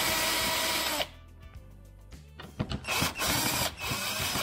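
Power drill-driver running in two short bursts, backing out the Phillips head screws that hold the front bumper's side to the wheel well. The first run lasts about a second; the second, shorter one comes about three seconds in.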